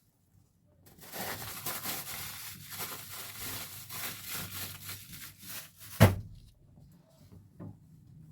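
Rustling and crinkling from something being handled, with many quick clicks, for about five seconds, then one sharp thump about six seconds in.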